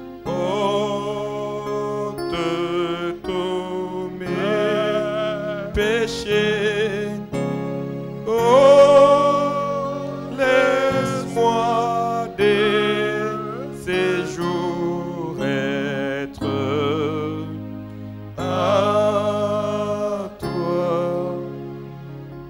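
Slow worship song: a voice sings wavering, drawn-out phrases over held instrumental chords.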